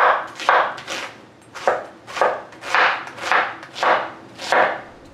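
Knife chopping through an onion as it is diced, in steady strokes at about two a second.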